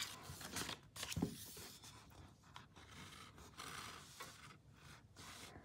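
A hand turning a page of a hardcover picture book: faint rustling and sliding of paper, with a few brief scrapes early on as the page is lifted and laid over.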